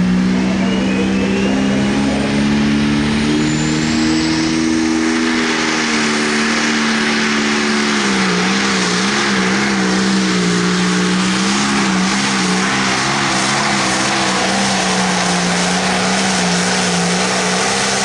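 Limited pro stock pulling tractor's turbocharged diesel engine running flat out on a pull, a loud steady high-pitched drone with a rising turbo whistle in the first couple of seconds. About eight seconds in, the engine note drops slightly and wavers under the load.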